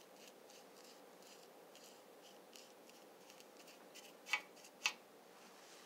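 Faint rhythmic scratching of a paintbrush stroking over a pedestal as it is given a white base coat, about three strokes a second, with two sharper clicks about four and a half seconds in.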